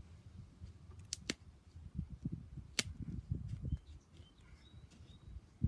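A kitchen knife cutting into a baseball's leather cover on a cutting board: a few sharp clicks, then a stretch of low, uneven knocks as the blade works against the ball and board.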